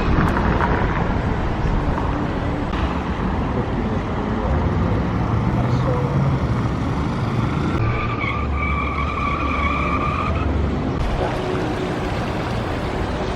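Steady city traffic noise of cars driving by, with a high squeal held for about three seconds from about eight seconds in.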